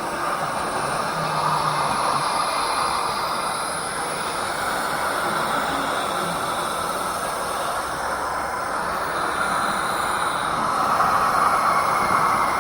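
Zombie horde sound effect: many moaning voices blended into one continuous, dense noise, growing somewhat louder near the end.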